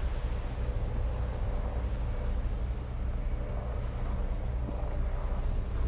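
A small passenger ferry's engine droning steadily as the boat runs through the water, a low hum with a faint steady tone above it, with wind buffeting the microphone.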